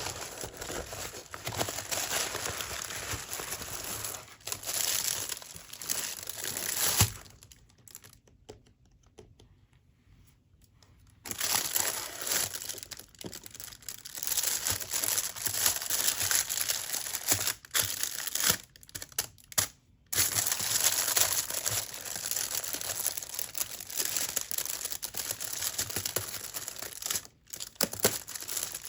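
Packaging being crinkled and torn open by hand. It goes quiet for about four seconds a quarter of the way in, then the crinkling resumes with a few short breaks.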